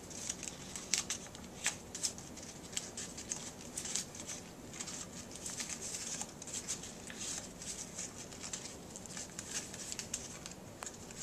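A sheet of origami paper being handled and folded, crinkling and rustling in short, irregular crackles.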